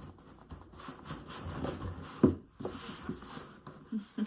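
Cardboard packaging being handled: rustling and light knocks as an item is pushed back into its box compartment, with one sharp knock about two seconds in.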